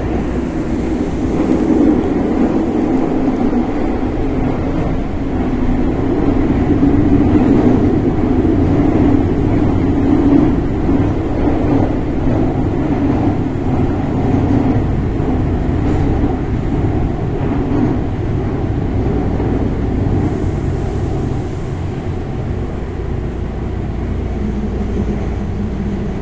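Kobe City Subway Kaigan Line linear-motor train running through a tunnel, heard from inside the car: a steady rumble of running noise. It eases slightly in the last few seconds, where a low steady hum comes in.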